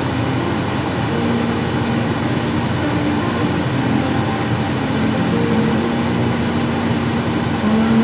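Case IH farm machinery (tractor or combine) running at a steady working load: a loud, even drone with a few faint held tones under it.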